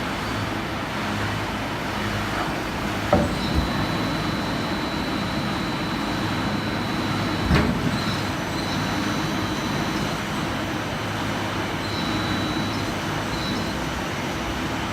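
Veneer peeling line running: a steady mechanical drone, with sharp knocks about three seconds in and again halfway through, and a thin high whine that comes and goes from about three seconds in.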